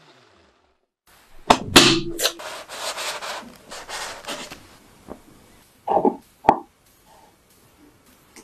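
Kitchen handling sounds: a few sharp clicks and scraping, then two short dull knocks about a second apart.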